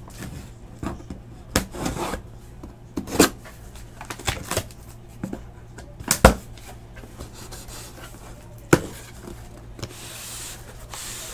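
Box cutter slicing the packing tape on a cardboard shipping case, with scattered knocks and taps as the box is handled, and a longer scratchy cut near the end.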